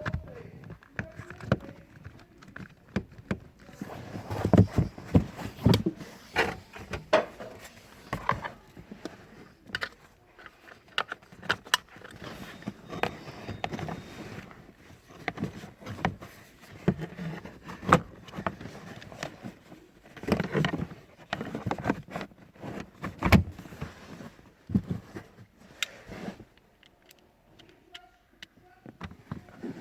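Hands working the plastic parts of a car's cabin pollen filter housing: irregular clicks, knocks and rustling as trim and the filter are handled.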